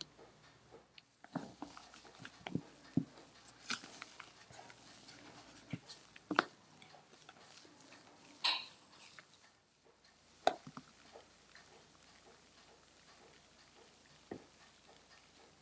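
Silicone spatula folding pumpkin chiffon batter into meringue in a glass bowl: scattered soft taps and clicks against the glass, with wet squishes of the batter.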